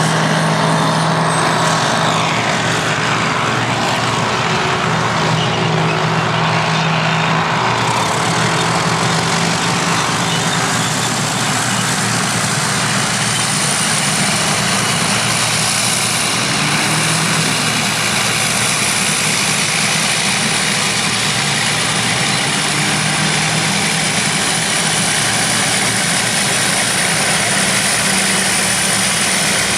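Vintage crawler bulldozers and scrapers working, their heavy diesel engines running steadily under load. A thin, high, steady whine joins in about twelve seconds in.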